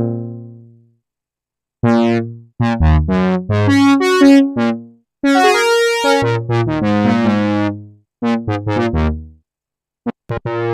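Arturia SynthX V software synthesizer, an emulation of the Elka Synthex, playing a run of short keyboard chords and phrases from its presets, each stopping dead before the next starts.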